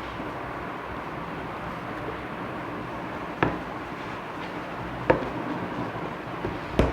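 Three sharp knocks or taps from the product box and its packaging being handled during unboxing, spaced a little under two seconds apart, over a steady background hiss.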